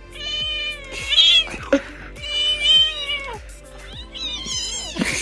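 A cat meowing three times, each a drawn-out call of about a second, over background music.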